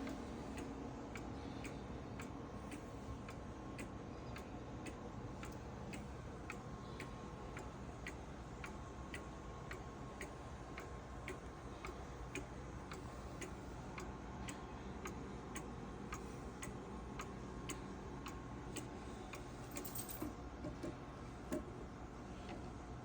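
Antique cuckoo clock's brass movement ticking steadily and evenly, about two to three ticks a second.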